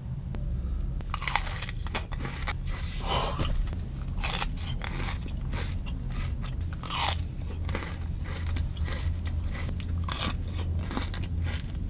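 Close-up chewing and crunching of grass, with irregular crisp bites and crunches, over a steady low hum.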